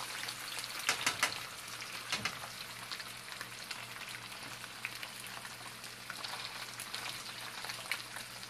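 Two whole snappers frying in shallow oil in a non-stick pan: a steady sizzle with scattered crackles and pops of spitting oil, a few louder pops about a second in.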